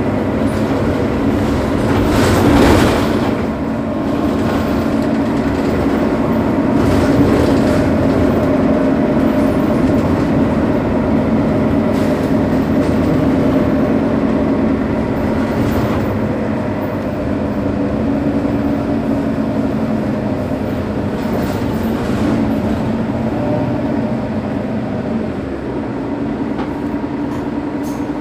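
Mercedes-Benz Citaro bus's OM 457 hLA six-cylinder diesel idling steadily while the bus stands at a stop, with a steady low hum. A brief louder rush of noise comes about two to three seconds in.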